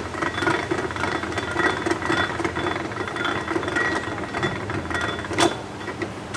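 Narrowboat's diesel engine running in gear with a fast, even chugging beat as the boat moves slowly through the lock, with one sharp click about five and a half seconds in.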